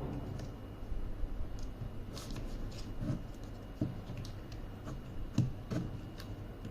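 Hands handling and fitting small plastic kit parts together: scattered light clicks and knocks with some rubbing.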